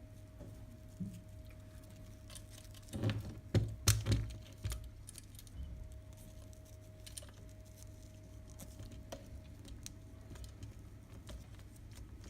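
Handling noise of a nylon camera strap being threaded through its buckle and leather loops: light rustling and small clicks, with a burst of louder knocks and scrapes about three to five seconds in, over a faint steady hum.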